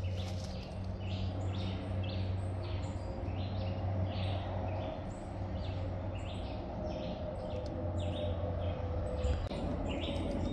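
Short high chirps repeated about twice a second, from a chirping animal, over a low steady hum.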